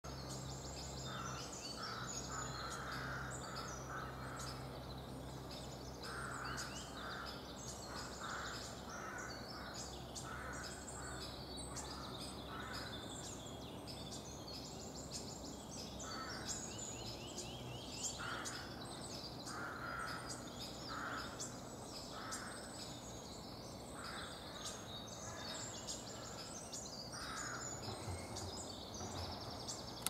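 Several wild songbirds singing over one another in a busy spring chorus, with a series of short, harsher calls repeated roughly once a second and a steady low hum underneath.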